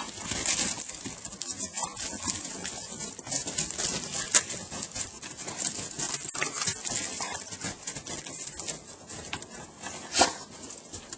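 An Irish Red and White Setter bounding through snow: a dense, irregular crunching patter of paws in the snow, with a couple of sharper knocks.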